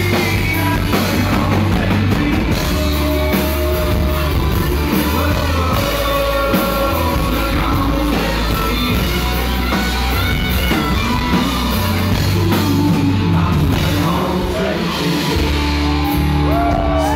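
Live band playing a loud rock-style song with a lead singer, heavy bass steady under the voice.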